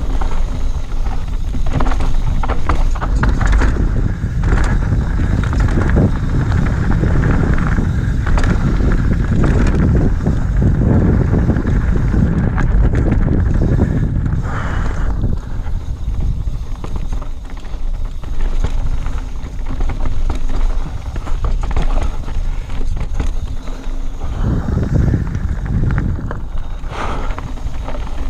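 Mountain bike ridden fast down a dirt and gravel trail: tyres rolling over stones and roots, with the bike clattering at every bump. Wind buffets the microphone throughout.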